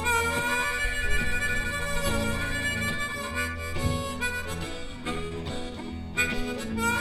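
Blues harmonica playing long held notes that bend up in pitch, over a live band's bass and guitar backing, as an instrumental break between sung lines.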